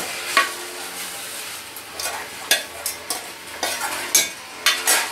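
A metal spoon scraping and clinking against a steel pan as the fried drumstick-flower mixture is emptied into a steel cup, with a string of sharp, irregular clinks over a steady scraping.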